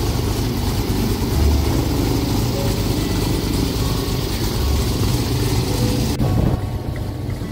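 Airboat engine and caged propeller running steadily, a loud low drone. The higher hiss drops out abruptly about six seconds in.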